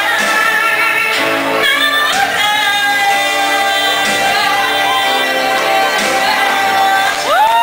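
A woman singing karaoke into a microphone over a recorded pop backing track. Near the end her voice slides up into a long held note.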